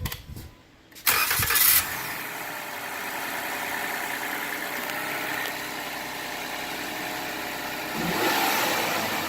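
2018 Ford Fusion Sport's 2.7-litre twin-turbo V6 starting: a short crank and catch about a second in with a brief flare, then settling into a steady idle, with the stock blow-off valve still fitted.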